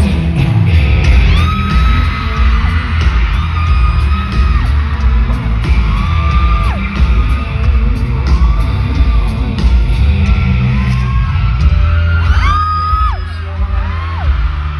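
Loud live pop music through a concert hall's sound system, with a heavy bass beat and a male singer. High held notes that rise, hold and drop recur every second or two.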